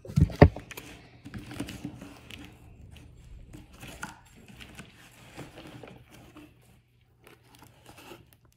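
A cardboard shipping box set down with two heavy thumps, then rustling, crinkling and scraping as its taped flaps are pulled open.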